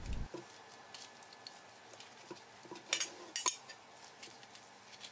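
A few light clinks and knocks of stainless-steel bowls being handled, the two loudest about half a second apart near the middle.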